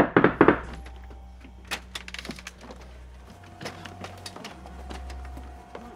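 A burst of heavy bangs on a wooden cabin door at the start, followed by scattered sharp cracks and creaks of wood as it is forced. A steady held tone from the score comes in about halfway.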